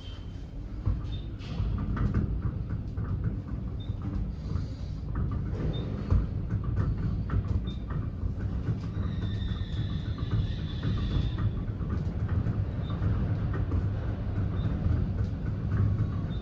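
Elevator car travelling up its shaft: a steady low rumble with rattles and clicks, and short high beeps at intervals.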